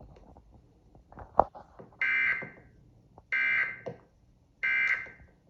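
Emergency Alert System digital data bursts: three identical short, harsh buzzing bursts about a second and a quarter apart, preceded by a sharp click. Coming right after the test message ends, they are the end-of-message code that closes the alert.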